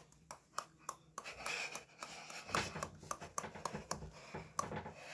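Teeth grinding close to the microphone: a run of irregular small clicks and scrapes.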